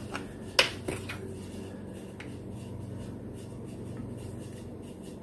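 Handling of a Worcestershire sauce bottle and a plastic measuring spoon: a sharp click about half a second in, a softer one just after and a faint tick a little later, as the bottle is uncapped and the sauce poured. Under them runs a steady low hum of room tone.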